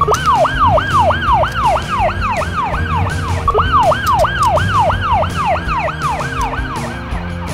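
Police car siren sound effect: a fast, repeating falling wail of about three and a half sweeps a second, sounding in two runs, the second starting about halfway through and stopping shortly before the end.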